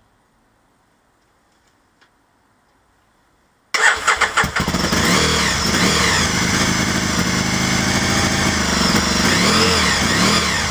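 A 2003 Aprilia Tuono's 998 cc V-twin engine cranks and fires about four seconds in, then runs with its revs rising and falling. The bike is having fuelling problems.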